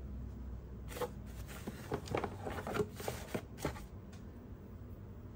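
Tissue-paper packing rustling and crinkling inside a cardboard box as items are handled, a run of uneven crackles lasting about three seconds, starting about a second in.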